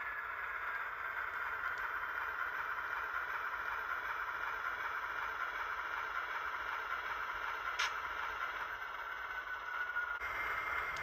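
Model diesel switcher locomotive rolling slowly along the track: a steady whirring of its motor and wheels on the rails, with a faint whine that slowly falls in pitch. A single sharp click about eight seconds in.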